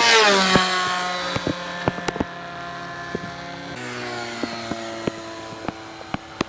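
Radio-controlled model airplane engine making a fast pass, its pitch dropping sharply as it goes by, then running steadily further off, its note stepping lower about four seconds in. Scattered sharp ticks from raindrops run through it.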